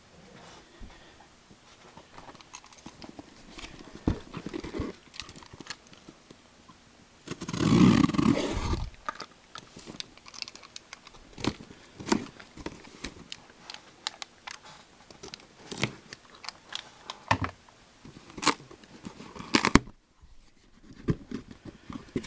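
Trading card boxes and packaging being handled on a table: scattered clicks and taps, with one loud crinkling rustle lasting about a second and a half, about eight seconds in.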